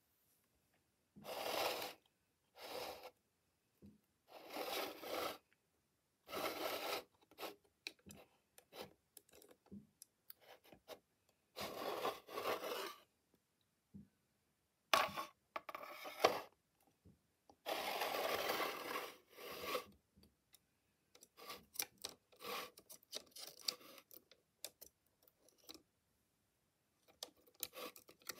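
Handling noise from a diecast model reach stacker being moved and turned by hand on its plastic display base: a series of short scraping and rubbing sounds, each lasting under a second or so, then lighter, quicker clicks and taps toward the end.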